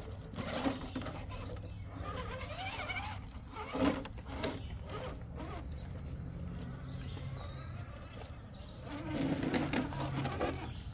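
Electric motors and geartrains of 1/10-scale Axial RC rock crawlers running with a steady low drone that shifts in pitch as they crawl over rock, with scattered knocks and scrabbles of tyres and chassis on stone; a bit louder near the end.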